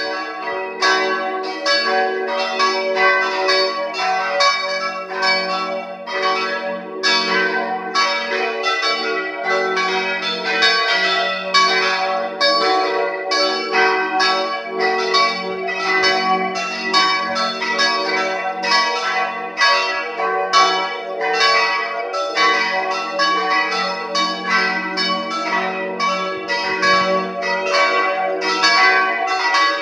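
Full peal of several church bells swinging together, their strokes overlapping in a dense, continuous stream of about two or three strikes a second.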